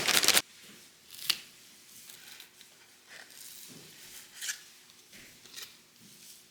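A brief loud rustle at the very start, then soft handling noises: scattered small clicks and light rustles, each a fraction of a second apart by a second or so.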